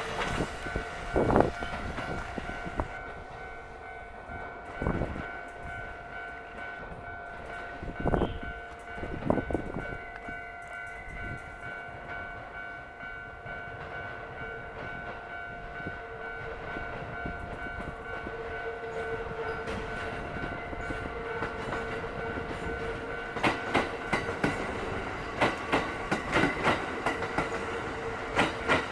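A train rolling through a level crossing: a few single wheel thumps over rail joints in the first ten seconds, then a quick run of clacks near the end as a set of wheels crosses. The crossing's warning bell rings as steady tones throughout.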